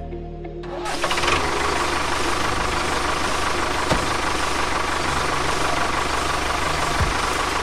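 A small motor starts running about a second in and keeps going steadily, with a fast low rattle.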